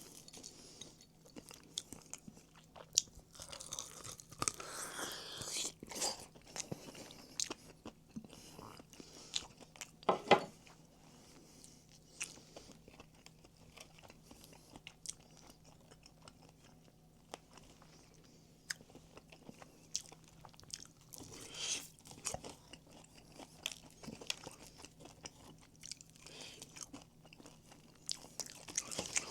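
Quiet crunching and chewing of crispy fried chicken, scattered bites with a few louder crunches.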